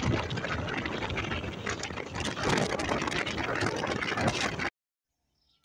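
Engine and road noise heard from riding in an open tuk-tuk, steady and loud, cutting off suddenly near the end.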